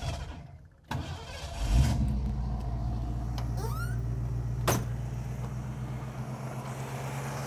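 A 1967 Ford Mustang's carbureted V8 is cranked about a second in, catches within a second, and settles into a steady idle after its accelerator-pump arm has been tightened. A single sharp click sounds midway through the idle.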